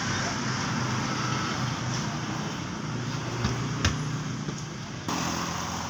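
Steady mechanical hum of an engine or motor over background noise, with two sharp clicks a little past the middle.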